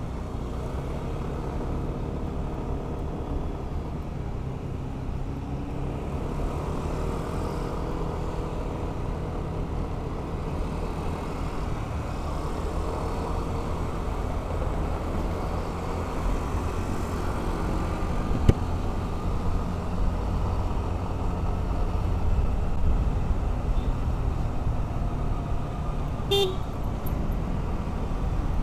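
Motor scooter engine running as it is ridden through city traffic, its pitch rising and falling with the throttle, under wind buffeting the microphone. A sharp click about two-thirds of the way through and a short horn beep near the end.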